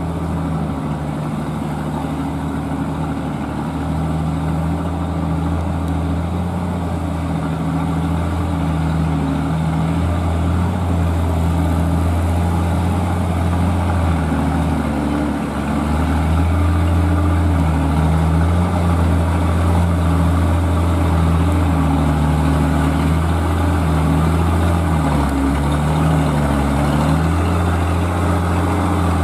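Engine of an old Toyota dump truck pulling a load of stone at low speed: a steady low drone that grows louder as the truck comes closer. Its pitch dips briefly a few times near the end.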